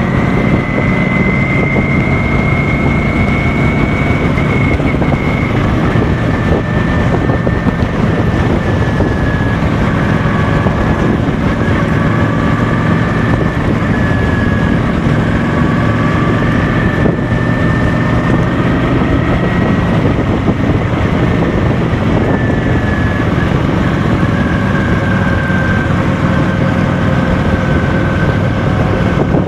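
Cruiser motorcycle's engine running steadily at cruising speed, with wind rushing over the microphone.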